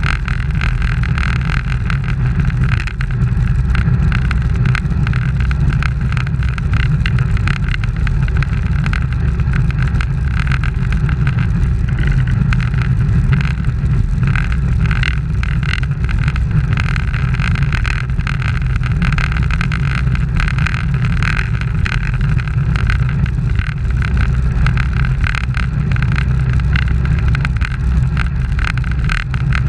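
Steady wind rush on a bike-mounted camera's microphone, with road noise from racing bicycles riding in a pack on asphalt.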